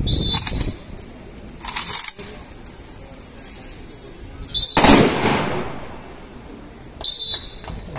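Rifle shots fired in a drill demonstration of firing positions: four separate sharp reports, the loudest a little before the halfway point with a long fading echo.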